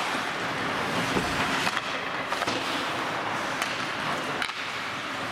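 Ice hockey play: a steady wash of skates scraping the ice, broken by several sharp clacks of sticks and puck.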